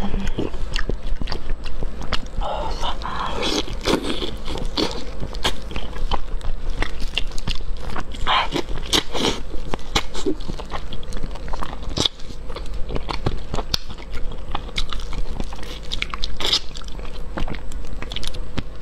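Close-up eating sounds: wet chewing and lip smacking with many short sharp mouth clicks as soft steamed fish is eaten by hand.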